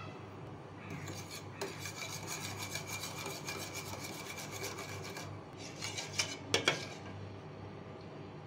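Metal spoon scraping and stirring chili powder into sauce in a stainless steel bowl. A fast, gritty rasping starts about a second in and runs for several seconds. A few louder clinks of spoon against bowl come near the end.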